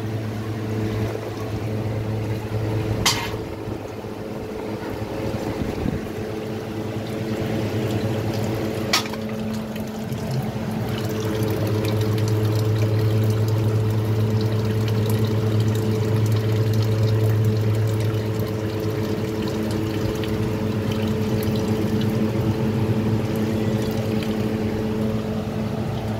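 Water sloshing and trickling as a piece of ginger root is rubbed and rinsed by hand in a bucket of water, over a steady low hum. Two sharp knocks sound in the first ten seconds.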